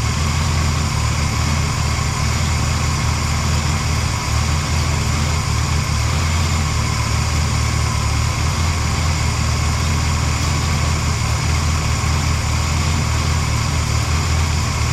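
Rebuilt Ford 460 big-block V8 idling steadily. The misfire it had is cured by a valve-train repair, with a rocker arm that had not been getting pushed.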